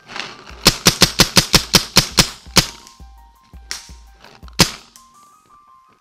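Paintball marker firing a rapid string of about a dozen shots, some six a second, then a single shot about two seconds later.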